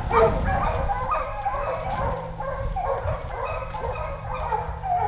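A pack of hunting hounds baying as they run a fox, many voices overlapping without a break.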